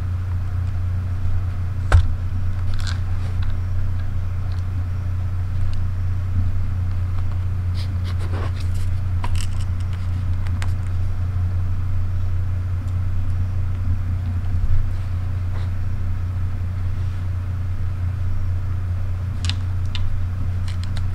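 A steady low hum, with scattered small clicks and knocks from compact cameras being handled: their tilting rear screens are flipped open and shut and the lens is turned. The sharpest click comes about two seconds in.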